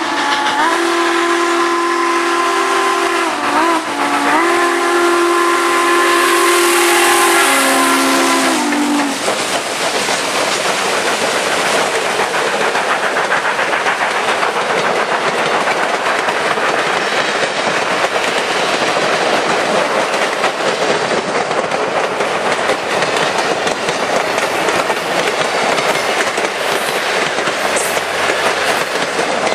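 Southern Pacific 4449's chime steam whistle blowing a long, loud chord, dipping briefly about four seconds in and sagging in pitch as it cuts off about nine seconds in. Then the steam locomotive and its train roll past with a steady rushing clatter of wheels on the rails.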